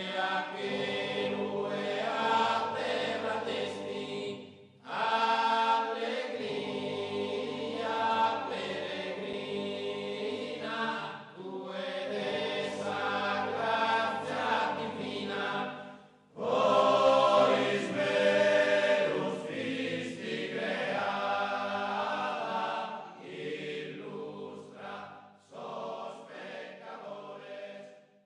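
A polyphonic choir singing a devotional song to Saint Usanna, in long phrases with short pauses for breath about 5 and 16 seconds in. The singing thins out near the end.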